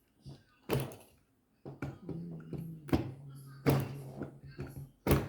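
Small hard objects being handled and knocked on a table: four sharp knocks and clicks, with a low steady hum running through the middle.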